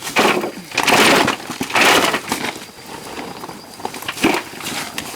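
Woody plant material cracking, snapping and rustling in a few separate bursts, the loudest about a second and two seconds in: crushed ayahuasca vine being handled.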